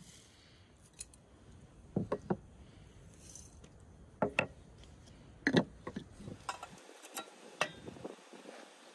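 Clinks and knocks of a glass teapot and small clay bowls handled on a wooden table while loose black tea is tipped into the pot, several sharp knocks a second or so apart.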